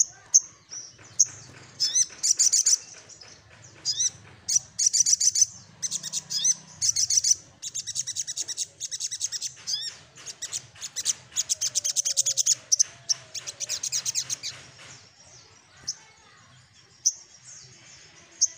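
Caged sogok ontong sunbird singing: bursts of fast, high-pitched chattering trills that run together into long rolls through the middle, then thin out to a few short chips near the end.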